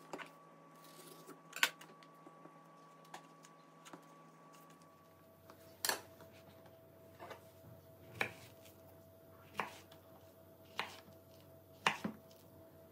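Sharp taps and knocks on a wooden cutting board, about eight spread out, as peeled bananas are set down and a kitchen knife is handled. Near the end the knife cuts through the soft bananas down onto the board.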